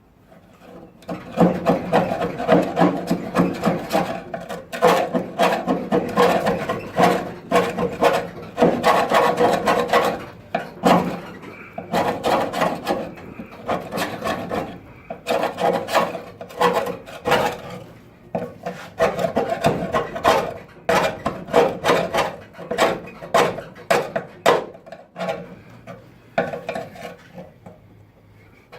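Hand scraping or rasping against the car's bodywork: quick, irregular stop-start strokes that come in flurries and thin out near the end.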